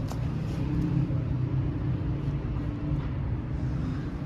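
Steady low rumble of a motor vehicle engine with a faint hum, as from street traffic or a vehicle idling close by.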